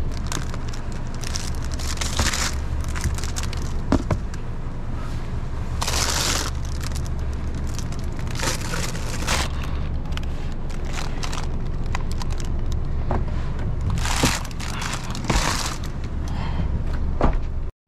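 Plastic wrapping and packaging crinkling and rustling in bursts as packaged food is handled and loaded into a car, over a steady low rumble. The sound cuts off abruptly near the end.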